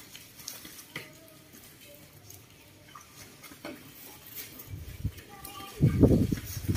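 Baby macaques giving faint short squeaks while they scuffle and feed, with a few light clicks. About five seconds in, loud low rumbling thumps take over and are the loudest sound near the end.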